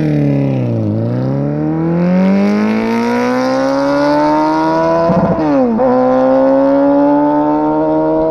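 Suzuki Hayabusa's 1340 cc inline-four accelerating hard through the gears, its exhaust note climbing steadily in pitch. The pitch drops sharply at upshifts about a second in and about five seconds in, and starts to drop again near the end.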